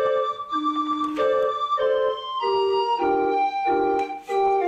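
Background music on an organ-like keyboard: held chords that change about every half second, with the melody stepping down around the middle.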